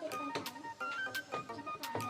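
Background music: a keyboard melody over a steady percussion beat.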